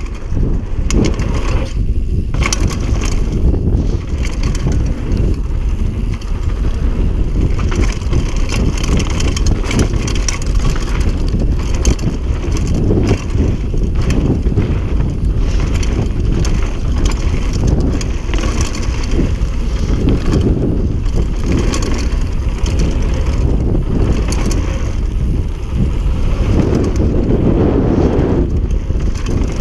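Mountain bike tyres crunching over a dry dirt and gravel trail on a fast descent, with a steady low rumble and constant rattling and clicking from the bike over the bumps.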